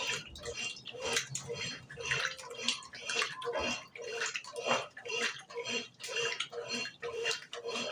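Brastemp BWG11 11 kg washing machine agitating a load on its bed-and-bath cycle: water sloshing in rhythmic swishes, about two a second.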